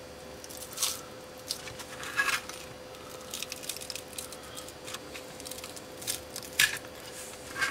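Foam block being twisted and pulled off a Narco AR850 altitude encoder's circuit board by hand: scattered short scrapes, squeaks and crinkles of foam and foil tape coming loose.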